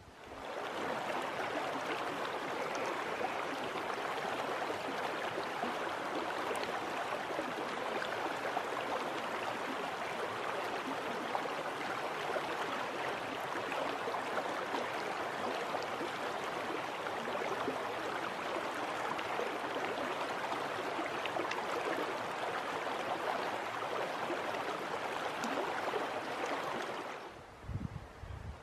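Small mountain creek flowing: a steady rush of running water, which cuts off suddenly near the end.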